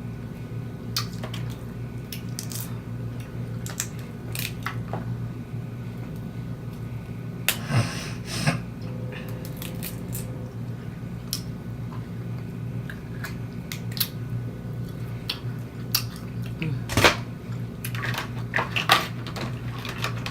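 Snow crab legs being cracked and eaten: irregular shell cracks, clicks and chewing, a denser run about 8 seconds in and one louder knock near the end, over a steady low hum.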